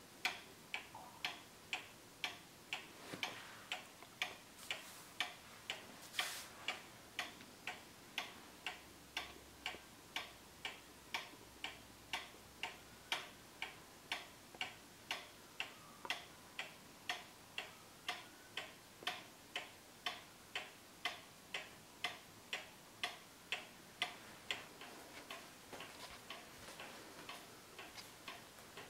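Johann Baptist Beha cuckoo clock's pendulum movement ticking steadily at about two ticks a second, growing fainter near the end. A brief rustle about six seconds in.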